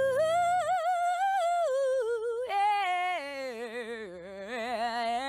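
A girl singing her own song in a high voice, a low guitar chord sounding under the first second before the voice carries on alone, the melody dipping lower about four seconds in.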